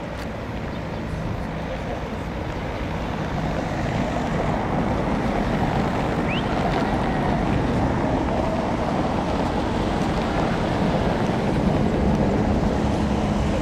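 A steady low engine drone mixed with wind noise, growing louder over the first few seconds and then holding.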